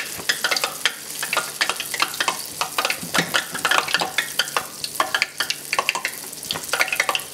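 Balls of bofrot yeast dough deep-frying in hot oil in a saucepan: a steady sizzle full of irregular crackling pops from the fresh, pale dough.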